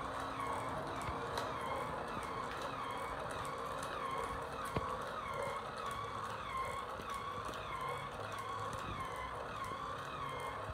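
Battery-powered walking toy horse's motor and gears whirring, the whine wobbling up and down in pitch in a regular cycle with each stride, with light ticks of its legs on the tile floor and one sharp click about halfway through.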